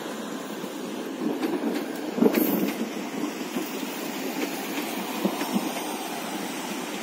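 Prameks commuter train passing close by, its wheels rumbling and clacking on the rails, with one louder clack a little over two seconds in.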